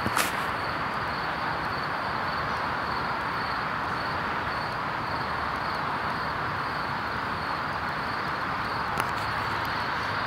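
Steady outdoor background noise: an even hiss with a thin, high, steady tone above it. A sharp click comes just after the start and another about nine seconds in.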